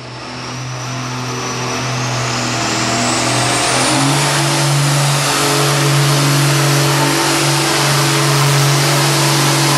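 Ford 9000 tractor's diesel engine running at full throttle while pulling a weight-transfer sled, getting louder over the first two seconds, with its pitch stepping up about four seconds in. A faint high whistle rises over the first few seconds.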